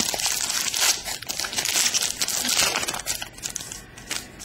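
Foil wrapper of a trading-card pack crinkling and tearing as hands pull it open. The crinkling is dense for about three seconds, then thins to a few scattered crackles.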